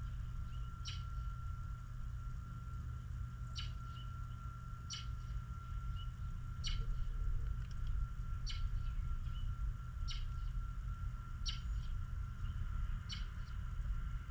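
A small songbird chirping, single short high chirps repeated about every one and a half to two seconds, eight in all. Underneath are a steady low rumble and a faint constant high tone.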